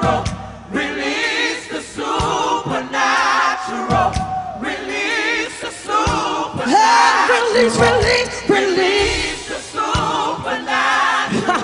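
Gospel worship choir and lead singers singing, with long wavering held notes.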